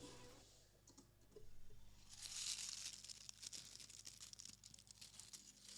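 Foley sound effect for a bird of prey grabbing a mouse, after EQ and effects: a faint, high hissing swell about two seconds in, breaking into scattered crackles.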